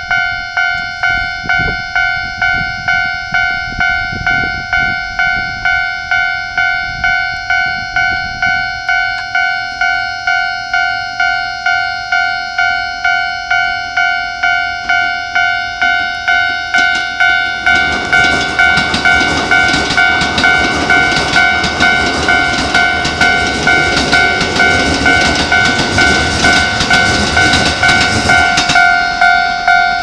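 Railway level-crossing alarm ringing a steady, evenly repeated ding, about one and a half a second. A little past halfway, a Keikyu 1000-series electric train starts running past, its wheel and running noise rising under the alarm.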